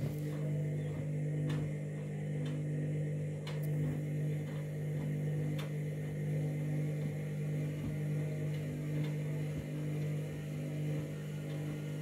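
Candy front-loading washing machine's drum motor humming steadily as the drum turns slowly and tumbles wet bedding, with occasional light knocks. It is the load-balancing stage before the final spin, and the machine is struggling to balance the bedding.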